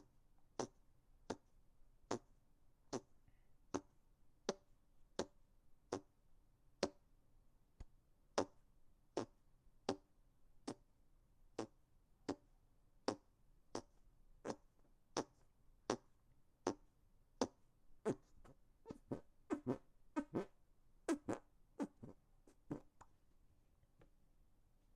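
Hand farts: air squeezed out between cupped hands in short fart-like squelches, about one every three-quarters of a second, then a quicker, uneven run near the end before they stop.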